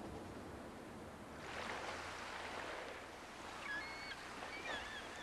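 Water washing in a steady rush that swells up about a second and a half in, with short, high bird calls over it in the second half.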